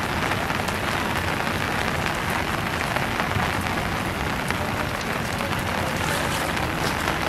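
Steady rain falling on floodwater, a dense even hiss of many small drop impacts.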